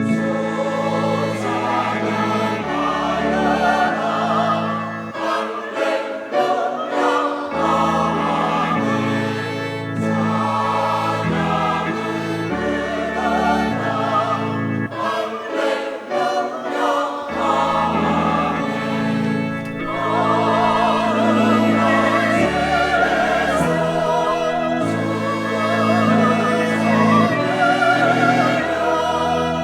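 Church choir singing a hymn in parts over sustained low accompaniment notes.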